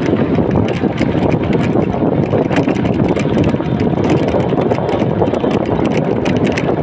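A rickshaw rolling along a paved street, heard from on board: a steady rumble with frequent rattles and clicks from the frame and wheels.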